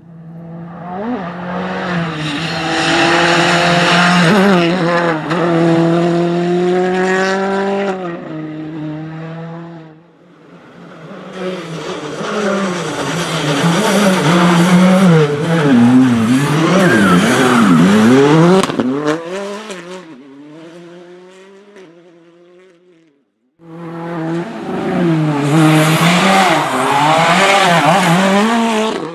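Hyundai i20 R5 rally car's 1.6 turbocharged engine, passing at full throttle three times, its note climbing, stepping and dropping with quick sequential gear changes.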